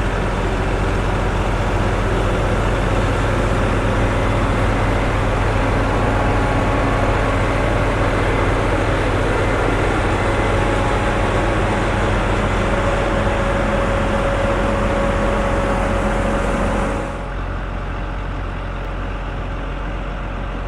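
Heavy farm vehicle engine running steadily with a low drone and a hissing wash over it. About three-quarters of the way through, the sound suddenly drops, becoming quieter and duller.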